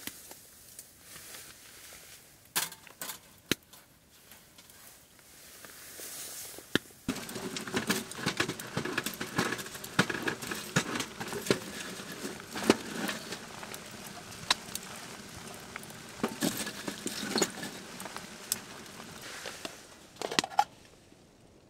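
Cooking in a pan on a small stove: scattered taps and clicks of utensils, then from about seven seconds in a steady frying hiss full of small pops, which dies away near the end.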